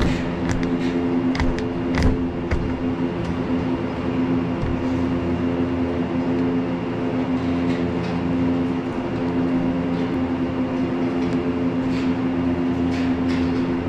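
Barn ventilation fan motors running with a steady hum of several pitched tones. A few light taps and rustles come in the first couple of seconds and again near the end as the insulation batts are pressed into place.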